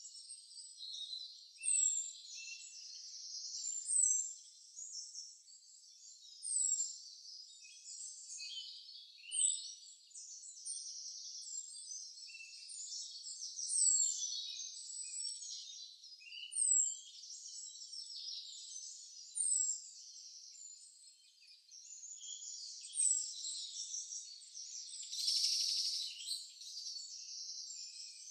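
A chorus of small songbirds chirping and twittering, with one high thin note that slides downward repeated every two to three seconds. A brief louder hiss-like burst comes near the end.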